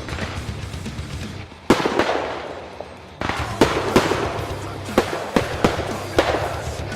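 Fireworks finale: a rapid series of sharp bangs from aerial shells bursting, eight or nine in all, each trailing off before the next, with a brief lull just before the run picks up about two seconds in.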